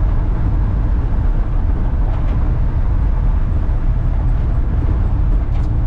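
Inside the cab of a 1993 Ford F150 with the 300 inline-six, driving on a gravel road: a steady low rumble of the engine and the tyres on the gravel.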